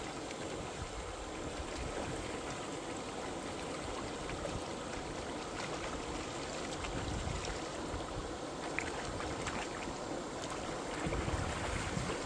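Steady rush of a shallow river flowing, with splashing as hands churn the water. Near the end come louder splashes of wading footsteps through the shallows.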